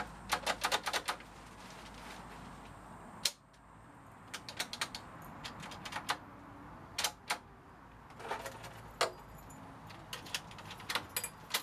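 Gainsborough Trilock door lock being worked by hand: the lever handle and latch bolt snap back and forth in quick runs of sharp metallic clicks, with one louder single clack about three seconds in.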